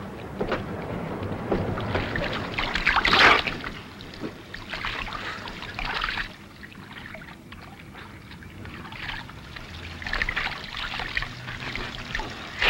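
Water splashing as a man washes his face and head with his hands under a running tap, in irregular splashes, the loudest about three seconds in.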